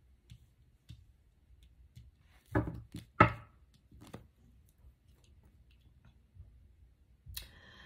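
Handling noises: a few sharp knocks, the two loudest about two-thirds of a second apart, then a softer knock and a brief rustle near the end, as something is moved around by hand.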